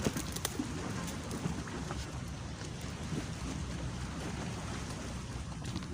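Wind buffeting the microphone, a steady low rumble with a hiss over it at the sea's edge, and a single click at the start.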